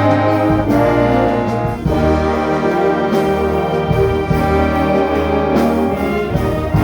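An orchestra playing, with the brass section (trumpets and trombones) prominent over held chords and a steady bass line.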